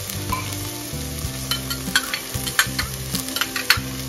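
Sliced onion and minced garlic sizzling in hot coconut oil in a stainless steel electric multi-purpose cooker. Sharp clicks and scrapes of a spoon against the metal pot come more often from about a second and a half in.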